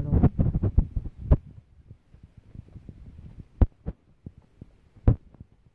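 Irregular low thuds from someone walking while holding the recording phone: footfalls and handling bumps on the microphone. The strongest come about one and a half, three and a half and five seconds in.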